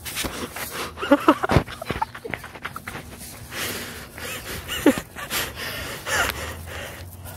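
Firecrackers finishing off: a cluster of sharp pops about a second in and another near the end, with a person breathing hard and making short vocal sounds close to the microphone.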